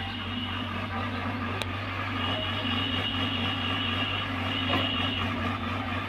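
Hyundai compact hydraulic excavator's diesel engine running steadily while digging, with a high whine that comes and goes.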